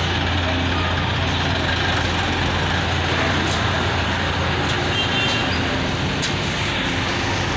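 Heavy diesel engines running steadily: an excavator's engine idling close by while a truck drives slowly past, a constant low drone with no revving.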